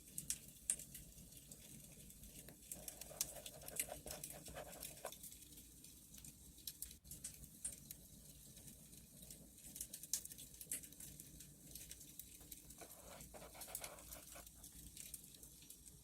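Wood fire crackling: irregular small pops and snaps over a low, steady hiss.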